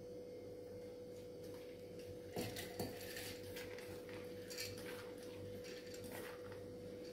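Soaked moong dal being scooped by hand from a steel bowl into a steel mixer-grinder jar: faint light clatter and scraping of wet lentils and the bowl rim against steel, with two sharper knocks a little over two seconds in. A steady faint hum runs underneath.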